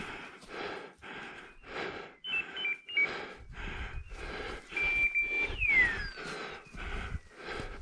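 Hurried footsteps crunching through forest-floor litter, about three steps a second. Around the middle come a few short, high, steady beeps, then a single high tone falling in pitch.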